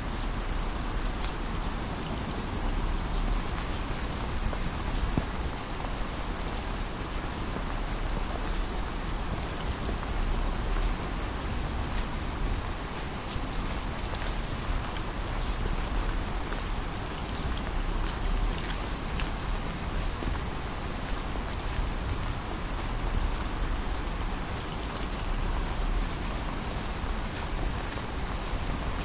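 Heavy downpour falling steadily, a dense even hiss of rain.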